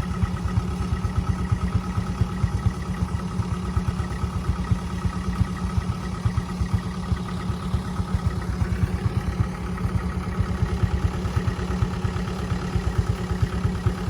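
Combine harvester's diesel engine running steadily, with a fast low throb and a steady whine from the machinery above it.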